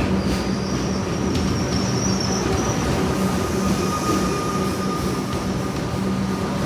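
Melbourne suburban electric train moving along the platform, running with a steady hum and a thin, high-pitched wheel squeal through the first few seconds.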